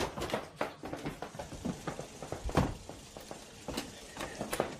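A quick, irregular run of knocks and taps, with one louder thud about two and a half seconds in.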